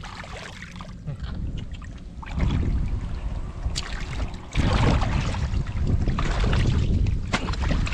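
Muddy water sloshing and splashing as hands grope through the mud for fish, louder from about halfway through, with a sharp click near the middle.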